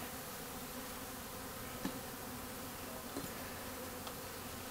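A newly installed package of honeybees buzzing steadily in and around an open hive, a swarm stirred up by being shaken out and smoked. Two faint clicks come about two and three seconds in.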